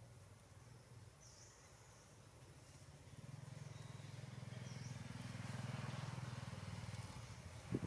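Faint low rumble of a motor vehicle engine, swelling from about three seconds in and easing off again, with faint high chirps above it and a short knock near the end.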